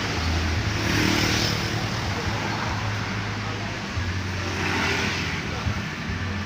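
Motor vehicle engine noise: a steady low hum under a broad hiss that swells and fades twice.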